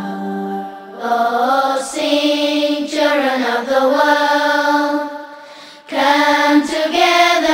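Background song: voices singing a wordless, chant-like melody in long held and gliding notes. The singing dies away briefly about five and a half seconds in and comes back strongly.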